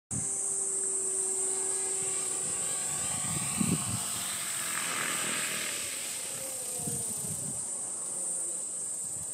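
Radio-controlled model helicopter flying low and setting down, with a steady high whine from its motor and rotor head. A lower tone glides down in pitch about halfway through. Low thumps come a few seconds in and again near the end.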